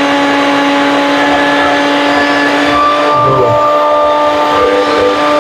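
Bajaj Elegance Ninja Series 500 W mixer grinder running with its steel jar fitted, a loud, steady motor whine at constant speed.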